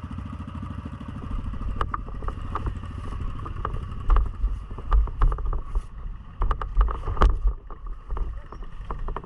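ATV engine running under way, with repeated sharp knocks and rattles of the machine over rough ground and heavy low thumps from about four seconds in.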